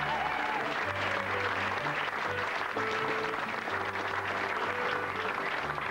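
Music playing over a crowd applauding.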